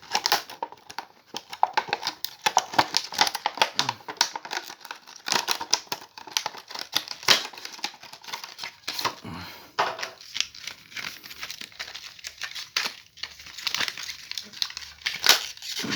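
Plastic packaging crinkling and rustling in quick, irregular crackles as a USB hub is unwrapped by hand.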